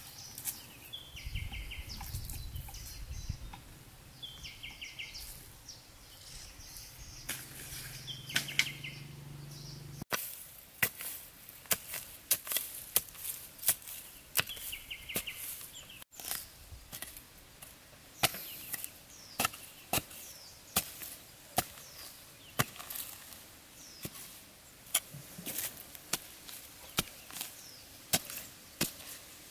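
A machete blade chopping and digging into soil: sharp strikes about one to two a second, starting about a third of the way in, with a few short calls in the quieter stretch before.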